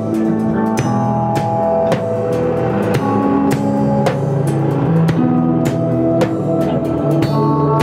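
Instrumental improvisation by a band: a drum kit playing frequent, irregular hits over held bass and guitar notes.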